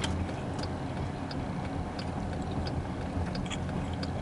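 Steady low rumble inside a car, with light ticking at a regular beat of about one and a half ticks a second.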